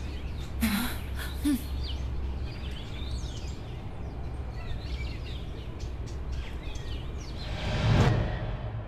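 Outdoor field ambience: birds chirping over a steady low background noise, with a brief swell of noise near the end.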